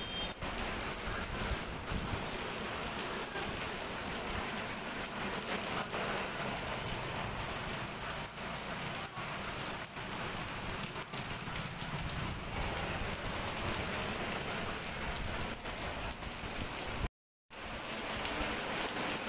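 Heavy rain falling steadily: an even hiss of rain on the ground with scattered drop ticks. The sound drops out briefly about 17 seconds in, then the rain resumes.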